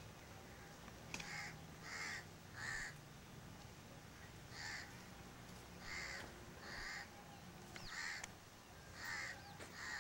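Crows cawing: a series of short caws in runs of two or three.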